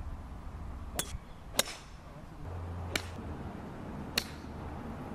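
Golf clubs striking golf balls off the tee: four crisp clicks with a brief ring, spaced unevenly, the second the loudest, over a low steady rumble.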